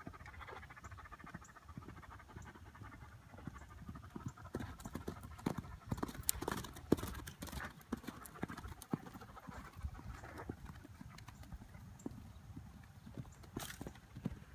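Medium pony's hooves striking sand arena footing at a canter: a run of uneven hoofbeats that is loudest about halfway through as the pony passes close.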